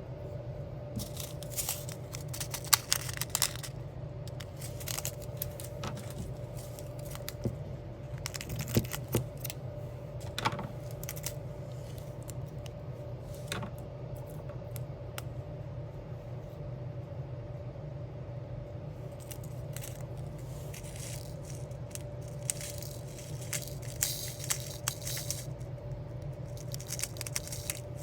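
Diamond-painting work: small plastic gems clicking and rattling as they are picked from a tray with a drill pen and pressed onto a sticker, in scattered clusters of light clicks. A steady low hum runs underneath.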